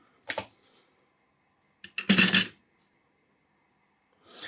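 Metal hard-drive parts clinking as they are set down on the opened drive: a short clink, a louder clatter about two seconds in, and a softer scrape near the end.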